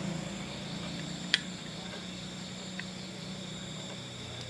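A steady low hum and a faint, steady high whine, with one sharp click about a second and a half in and a lighter tick near three seconds, as a circuit board is handled by hand.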